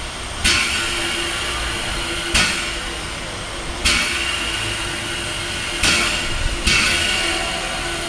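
Standing ČSD class 310 steam tank locomotive letting off sharp hissing puffs of steam, five in all, coming irregularly every one to two seconds, each fading over about a second, over a steady low hum.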